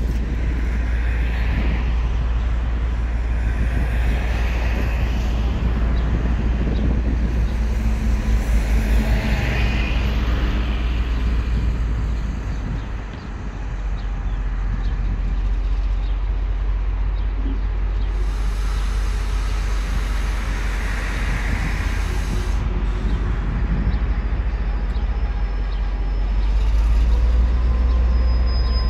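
Diesel locomotive running as it slowly approaches, over steady low traffic and industrial noise. Near the end a thin, steady high squeal of its wheels on the curved track begins.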